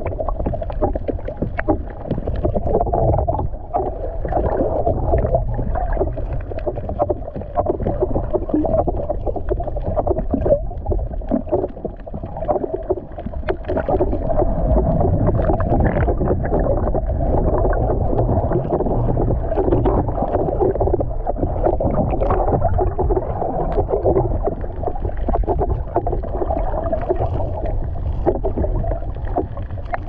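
Water noise heard underwater while snorkeling: a steady, muffled rush with a low rumble and many small clicks and crackles, growing a little louder about halfway through.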